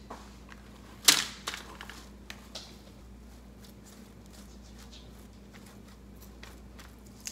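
Soft rustling and light ticking of thinly sliced onion being spread by hand over a mesh dehydrator sheet, with one louder brush about a second in.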